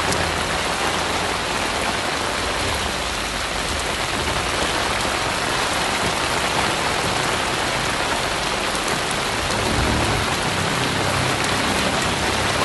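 Heavy rain pouring onto a flooded street, a steady hiss of drops striking standing water.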